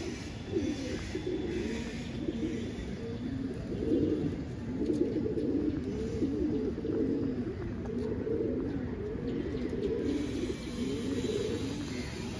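A flock of domestic pigeons cooing, many low calls overlapping without a break.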